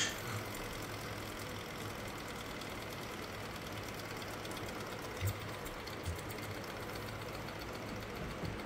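Small model Stirling engine running, giving a steady light mechanical whirr and rattle from its piston and crank. Two brief knocks come a little past the middle.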